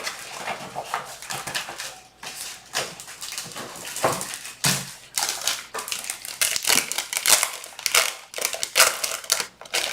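Thin sheets of paper being handled and pulled from a stack, with irregular rustling and crinkling throughout.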